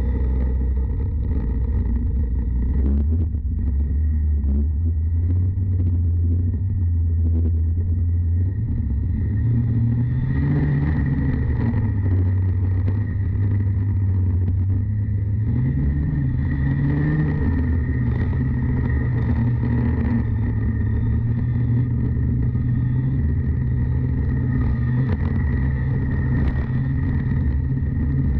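Junior Light racing kart's two-stroke engine running, heard from on board the kart. Its pitch stays low for about the first eight seconds, rises around ten seconds in, dips, climbs again a few seconds later and then holds steady.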